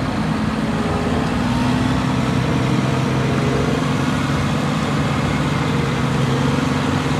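Heavy diesel engine of a DAF truck hauling a concrete mixer semi-trailer, running steadily with a deep even hum.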